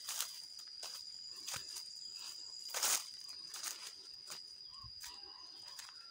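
Footsteps crunching through dry leaf litter, a crackle about every half second with the loudest about three seconds in, over the steady high trill of an insect.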